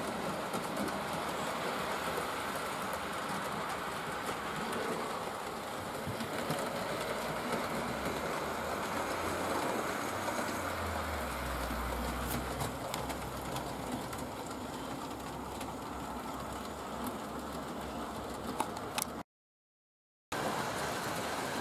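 Model trains running on the layout: motor whirr and wheels clicking steadily over the rail joints. The sound cuts out for about a second near the end.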